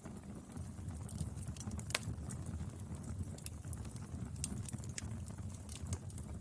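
Wood fire burning: frequent sharp crackles and pops over a low, steady rumble of flames, with one louder pop about two seconds in.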